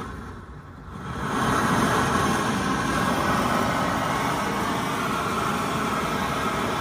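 Propane torch nozzle (Sear Pro S.A.F.E. flamethrower) on a small propane tank, burning: the gas rush swells about a second in to a steady rushing flame noise that holds on.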